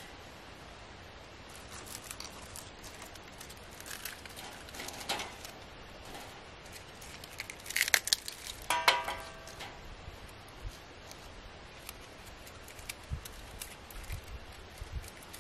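Bark and kindling being handled and set down on a steel pop-up fire pit: scattered light cracks and rustles, then a cluster of sharp knocks about eight to nine seconds in, the last with a brief metallic ring from the pan. Steady river background noise throughout.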